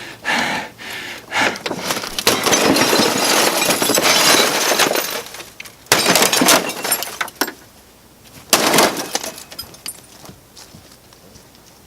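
Glass breaking and shattering in a run of crashes, with two loud separate smashes about six and nine seconds in.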